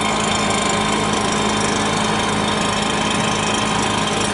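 The small engine of a blower used to push a canoe, running steadily with a buzzy, rattling drone.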